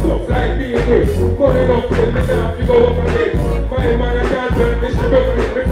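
Live dancehall reggae through a concert PA: a heavy bass riddim with a steady beat, and a man singing over it on a microphone.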